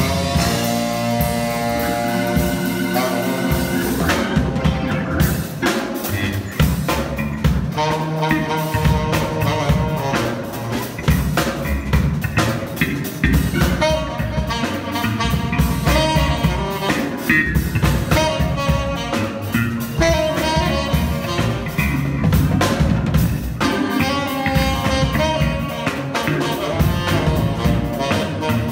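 A live band playing an instrumental: a tenor saxophone leads over keyboard, bass and a drum kit.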